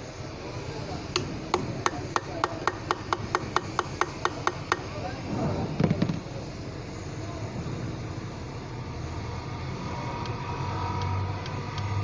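Ratchet wrench clicking as it turns a bolt inside the crankcase of a Bock FK40 bus air-conditioning compressor: an even run of about seventeen clicks, roughly five a second, over three and a half seconds. A single knock follows about six seconds in, and a low hum rises near the end.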